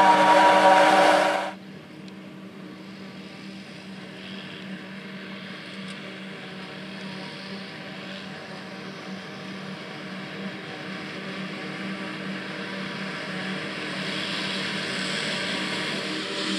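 John Deere self-propelled forage harvester and tractor engines running close by, cutting off abruptly about a second and a half in to a quieter, steady engine hum. The hum grows gradually louder as the harvester and tractor-drawn trailer come up the field.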